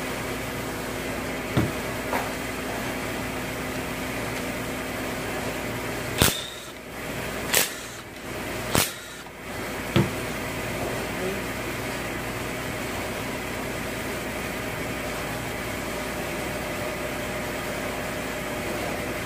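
Steady shop hum with a handful of short, sharp metallic knocks and clicks a second or more apart, four of them louder between about 6 and 10 seconds in, as bolts and parts are worked off a bare 5.7 Hemi V8 engine block during the timing chain tensioner removal.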